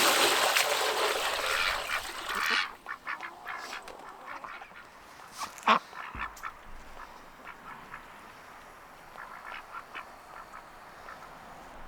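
Domestic ducks quacking, with a loud rushing noise over the first two and a half seconds and a few scattered knocks after it.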